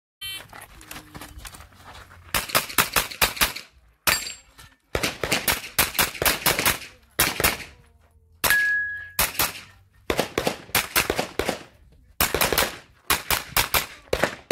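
Semi-automatic pistol firing fast strings of shots, several in quick succession in each string, with short pauses between strings as the shooter moves between shooting positions.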